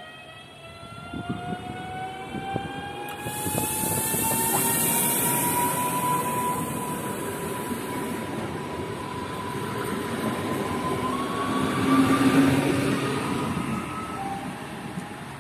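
PESA Elf EN63a electric multiple unit moving along the platform, the whine of its traction equipment rising slowly in pitch. A high hiss joins for a few seconds about three seconds in.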